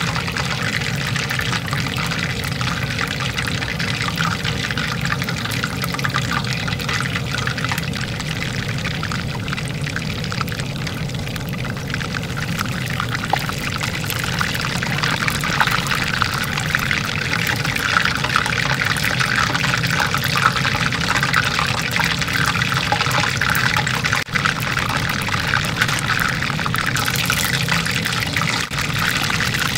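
Chicken wings deep-frying in hot oil: a steady, dense sizzle and crackle of bubbling oil, growing a little louder in the second half.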